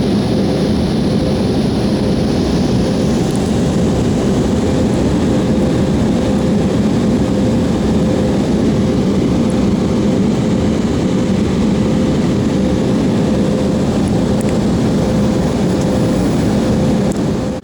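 Airliner cabin noise in cruise: a steady rush of engine and airflow with a constant hum. It cuts off suddenly near the end.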